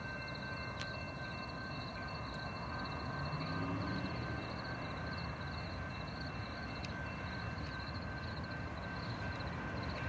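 Distant approaching passenger train, a faint low rumble that swells slightly, under steady pulsing cricket chirping.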